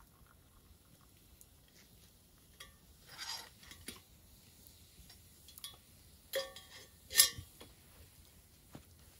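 Metal camp cookware and a tin cup clinking as they are handled: a few scattered clinks with a short metallic ring. The two loudest come past the middle, less than a second apart, and the second is the sharpest.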